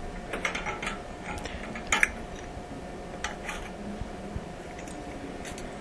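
Scattered light clicks and clinks of hard parts being handled, the loudest about two seconds in, over a faint steady hum.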